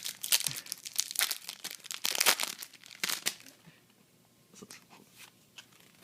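Foil Yu-Gi-Oh booster pack wrapper being crinkled and torn open: a dense run of crackles for about the first three seconds, then a few light rustles and clicks.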